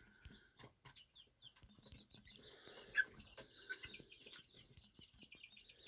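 Faint, irregular taps of typing on a smartphone's touchscreen keyboard, with a few short high chirps, the loudest about three seconds in.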